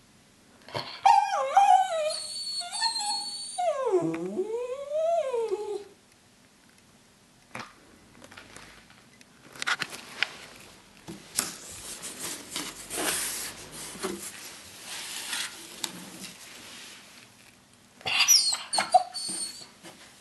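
A small dog whining and yowling in sliding, wavering cries that dip low and rise again for about five seconds. Then comes a stretch of rustling of paper and cardboard, and a short whine near the end.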